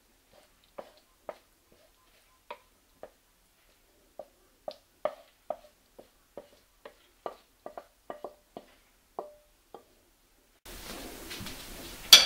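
Irregular light knocks and taps of a wooden spatula against a frying pan as creamy pasta is scraped out onto a plate, each with a short ring. Near the end, over a faint room hiss, comes a single sharp click, the loudest sound.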